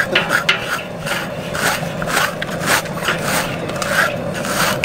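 Hair being scraped off a scalded hog's hide: repeated rasping strokes, about two a second, over a steady hum.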